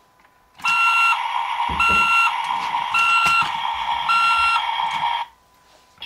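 Electronic sound effect from a toy CAT bulldozer, set off by a press of its button: a steady electronic tone with four beeps repeating about once a second over it. It starts about half a second in and cuts off about a second before the end.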